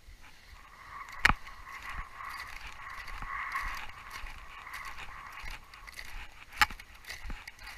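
Climbing gear knocking and scraping against glacier ice: two sharp knocks about five seconds apart, with small scrapes and crackles between them over a steady hiss.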